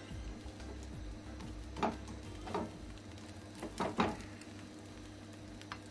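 A slotted spatula knocking against a frying pan, a couple of clatters about two seconds in and a tight cluster around four seconds, over a low steady hum.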